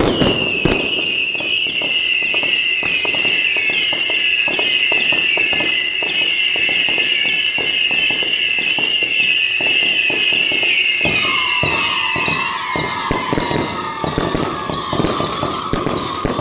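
Fireworks crackling densely under a long, wavering high-pitched whistle. About eleven seconds in, a lower whistle starts and carries on as the first one fades out.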